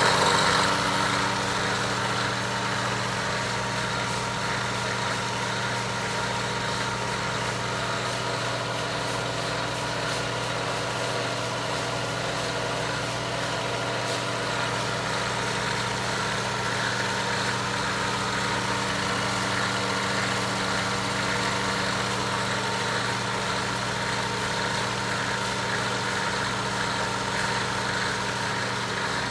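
Pool-pump electric motor (Westinghouse 1/3 hp, 3450 rpm) running steadily, belt-driving a Roots blower: a constant hum with a whir. It is loudest in the first second, then holds level.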